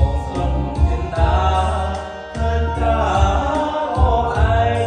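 A man singing into a wireless microphone over a karaoke backing track with a steady beat, both played through a Samsung Sound Tower MX-ST50B party speaker. The singing breaks off briefly about two seconds in.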